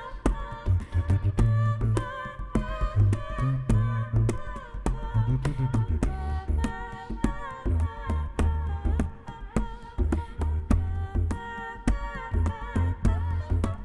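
Live band music with a steady percussion beat and a deep pulsing bass under a wavering melodic line.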